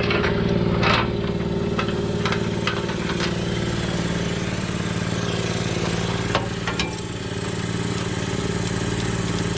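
A motor running steadily at an even speed, with a few short metallic clicks about a second in and again twice near two-thirds of the way through.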